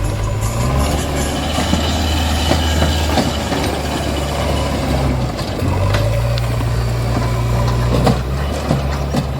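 A vehicle engine running steadily with a low hum, dipping in pitch briefly about halfway through, with a few light clicks near the end.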